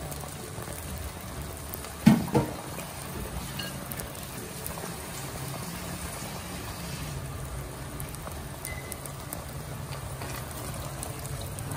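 Pot of quinoa and diced potatoes simmering on a gas burner, a steady low bubbling. One brief, sharp knock about two seconds in.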